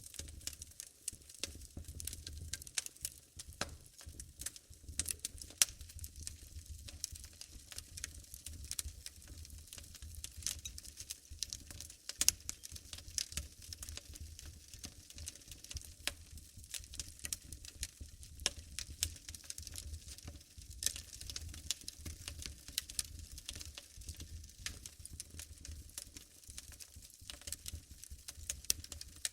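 Wood fire burning in a fireplace, crackling with many irregular sharp pops over a low rumble of the flames.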